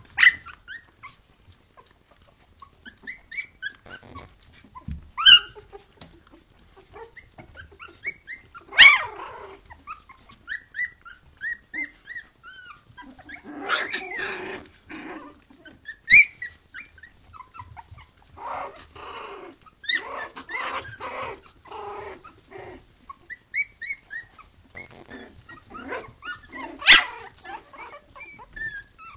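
Litter of three-week-old Tibetan terrier puppies playing together: a running stream of high squeaks and yips, a few sharp, loud yelps, and several longer, rougher stretches as they tussle.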